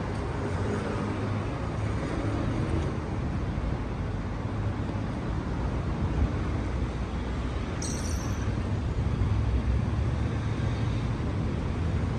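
Steady city street traffic noise: the rumble and hiss of cars passing along the road. A brief high squeak sounds about eight seconds in.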